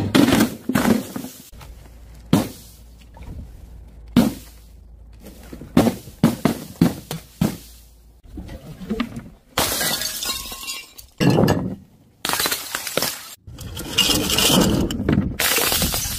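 Glass bottles and other brittle objects dropped from a height and smashing on impact. First come a run of separate sharp crashes. From about nine seconds in there are longer stretches of shattering and crunching.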